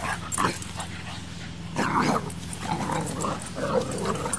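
A Boxer puppy and an English Mastiff play-fighting, with several short bursts of dog vocalising, the loudest about two seconds in.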